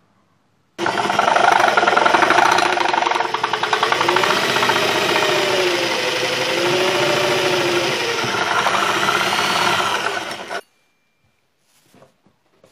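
Electric drill boring through a square steel tube, the motor running loud and steady under load with its pitch wavering up and down. It starts suddenly about a second in and cuts off suddenly near the end.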